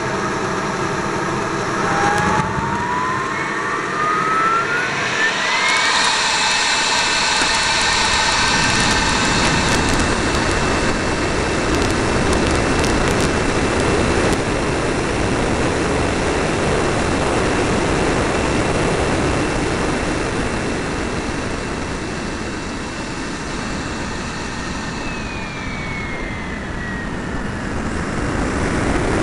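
Whine of a radio-controlled F-86 Sabre model jet's power unit, heard from on board. It rises steadily in pitch for a few seconds as the throttle opens for take-off, holds at a steady high whine in flight under a loud rush of air over the fuselage, then drops a little in pitch near the end as the throttle is eased back.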